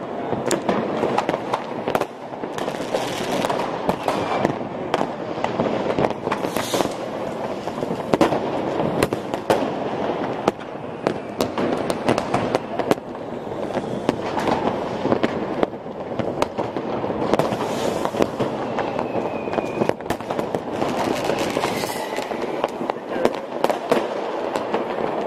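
Dense, unbroken barrage of New Year's Eve fireworks and firecrackers: a constant crackling din with many overlapping bangs and a few short rocket whistles.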